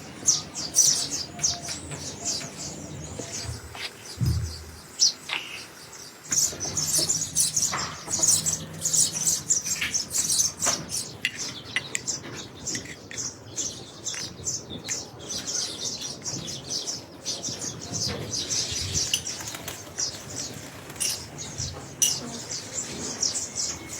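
Small birds chirping: many rapid, short, high-pitched chirps overlapping throughout.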